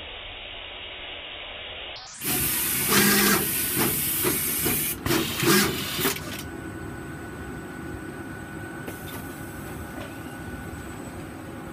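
Universal Instruments AX-72 surface-mount pick-and-place machine with its GSM FlexJet placement head running. About two seconds in comes a loud noisy stretch of about four seconds, broken by a string of clicks. Then it settles to a quieter steady running noise with a faint high tone.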